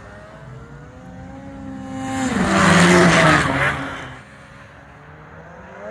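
Snowmobile engines running, with one sled coming close and passing about two seconds in: its engine swells loud and its pitch drops as it goes by, then fades back under a quieter sled engine.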